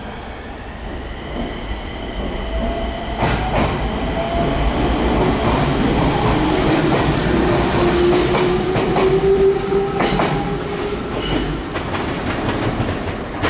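Enshu Railway 2000-series electric train pulling out and gathering speed past the platform: the traction motors' whine rises steadily in pitch, with the wheels clicking over rail joints as the cars go by.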